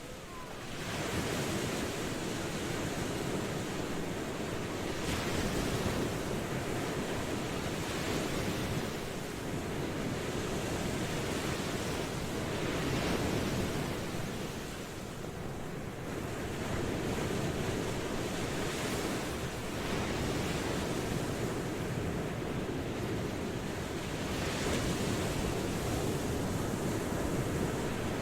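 Ocean surf: a steady wash of waves, swelling every few seconds as each wave breaks.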